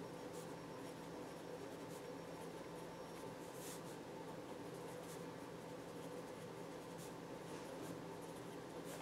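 Faint scratching of a pen writing by hand on a paper journaling card, in short strokes, over a steady low hum.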